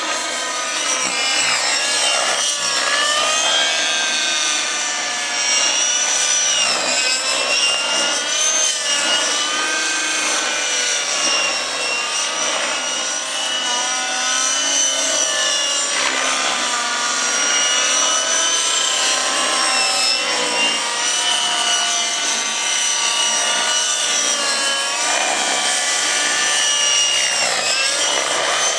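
Radio-controlled model helicopters flying aerobatics: engine and rotor whine from several machines at once, the pitch constantly sliding up and down as they manoeuvre.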